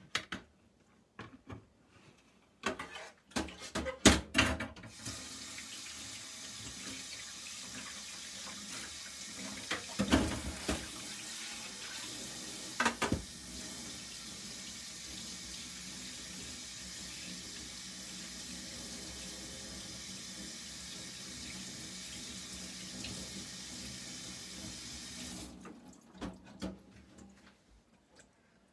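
Kitchen tap running steadily into a stainless steel sink for about twenty seconds, with a few knocks and clatters, the loudest just before the water starts.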